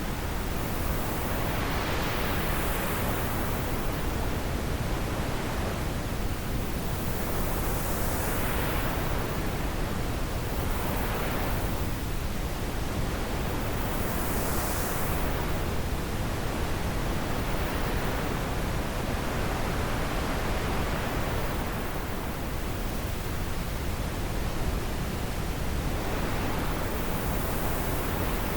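Wind blowing as a steady rushing noise, swelling and easing in gusts every few seconds.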